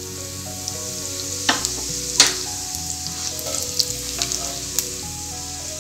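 Cumin seeds sizzling in hot ghee, with a steady hiss and a scattering of sharp crackles and clicks as they are stirred with a wooden spatula. Soft background music plays underneath.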